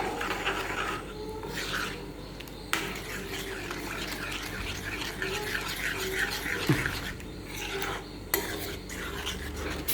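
A spoon stirring and scraping round a pan of thickening milk, sugar and cornflour on the stove, in repeated scraping strokes.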